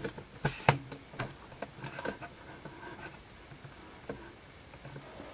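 Handling noise from a camera being readjusted: a run of knocks and fumbling clicks on the camera, loudest about half a second in and thinning out after about two seconds, with one more knock near four seconds.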